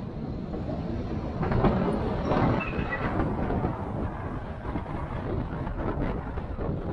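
Off-road 4x4 rolling over a rough, rocky track: a steady low rumble full of knocks and rattles from tyres on stones and the body shaking, swelling louder about a second and a half in.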